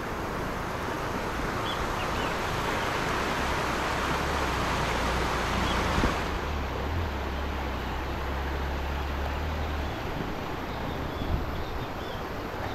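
Swollen, muddy river floodwater rushing and churning over a submerged road, a steady noisy rush. Wind rumbles on the microphone through the middle.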